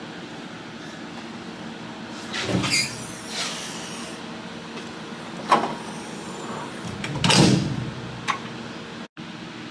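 Steady low hum with a few knocks, clicks and sliding scrapes of a moulder's parts being handled; the loudest is a longer scrape about seven and a half seconds in.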